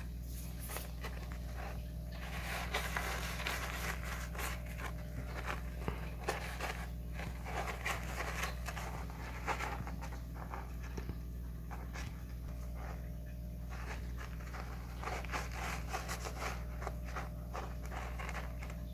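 A kitten digging and scratching in granular cat litter in a plastic litter box: irregular rustling scrapes and patters of the granules, over a steady low hum.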